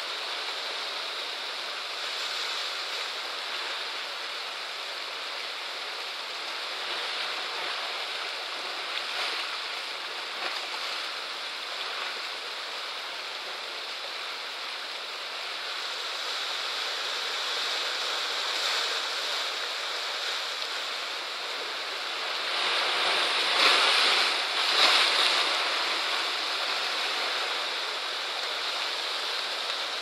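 Sea waves washing against a rocky shore and tide pool: a steady rush of water, with a louder surge of two crashes close together about three-quarters of the way through.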